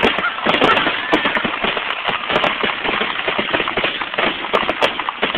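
Fireworks finale barrage: a dense, unbroken stream of bangs and crackles, many shells bursting in quick succession.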